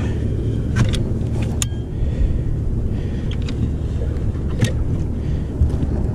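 Caulk gun squeezed to run a bead of sealant along the edge of a sheet-metal chimney liner plate, giving a few sharp clicks over a steady low rumble.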